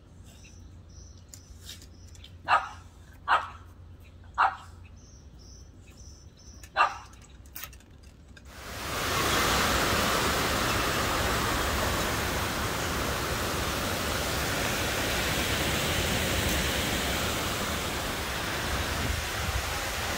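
A few short, sharp animal barks, a second or more apart. About eight and a half seconds in, the sound cuts to the loud, steady rush of heavy rain and wind in a storm.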